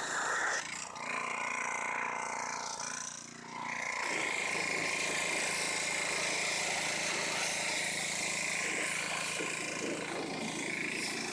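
A motor running steadily. It eases down briefly about a second in and again around three seconds, then holds a constant pitch.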